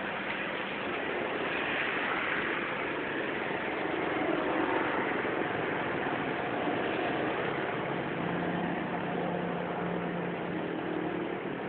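Steady hiss of rain and traffic on a wet street, with motor engines humming as vehicles pass.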